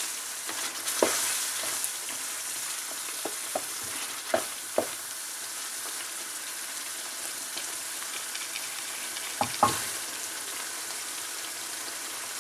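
Lamb karahi sizzling steadily in a metal pot while a metal spatula stirs it, with a few sharp knocks and scrapes of the spatula against the pot, the loudest a little before the end.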